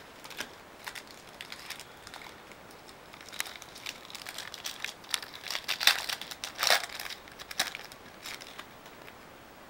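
Trading-card pack wrapper crinkling and tearing as it is opened by hand, with the cards inside being handled; scattered crackles that grow denser and louder in the middle.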